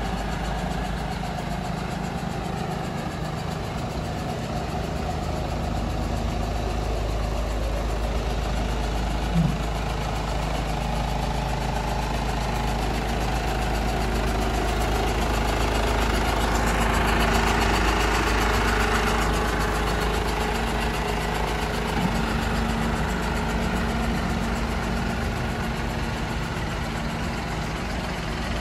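Isuzu FVR truck's diesel engine idling steadily, swelling a little in the middle, with two short sharp clicks: one about nine seconds in, one past three-quarters of the way.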